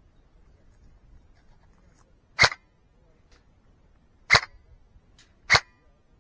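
Three sharp, loud airsoft gun shots, each a brief crack. The first two are about two seconds apart and the third follows about a second later.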